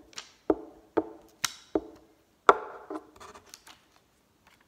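A hand patting a freshly glued paper cut-out down onto paper on a tabletop: about six sharp taps over the first two and a half seconds, the loudest last, then a few lighter taps and paper handling.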